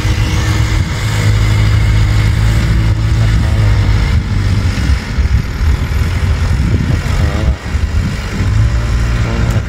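Kubota M6040 tractor's diesel engine running steadily under load as it pulls a disc plough through dry ground, with a brief dip in level about seven and a half seconds in.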